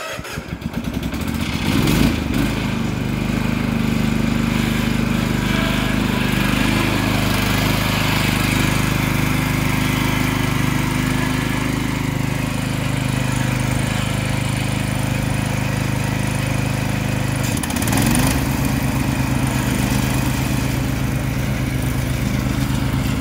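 Toro TimeCutter SS3225 zero-turn mower engine running steadily just after starting. The engine note picks up about two seconds in and rises briefly about three-quarters of the way through.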